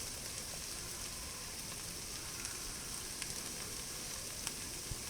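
Chopped onion, celery and carrots sautéing in oil in an electric pressure cooker's pot: a steady sizzle with a few faint pops.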